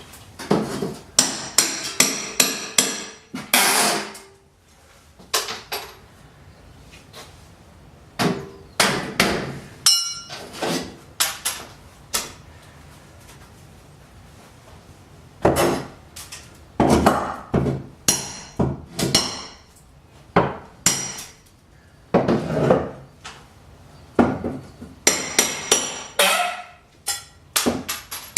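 Hammer driving nails: sharp blows come in clusters of several quick strikes, separated by pauses of a few seconds. A brief high ringing sound comes about ten seconds in.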